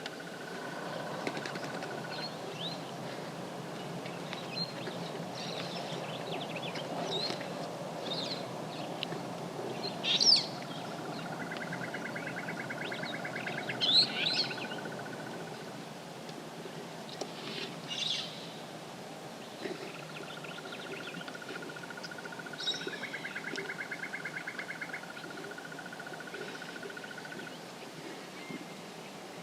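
Wild birds calling in the bush. A fast, pulsing trill of several seconds comes three times, mixed with scattered short chirps, two of them sharp and loud about ten and fourteen seconds in, over a steady low background rumble.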